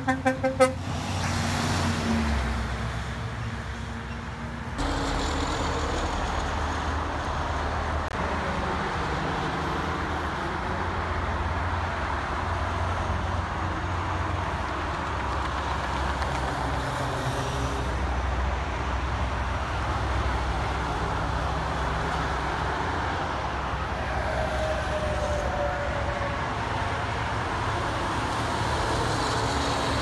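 A truck horn blown in quick short blasts, stopping within the first second. Then heavy diesel trucks, including dump trucks, pass on a highway: steady engine and road noise over the traffic.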